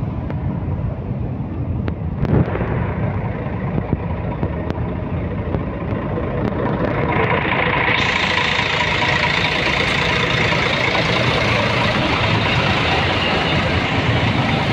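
Vehicle engines running in traffic on the move, with a rushing road-and-wind noise that grows louder about halfway through. A brief knock sounds about two seconds in.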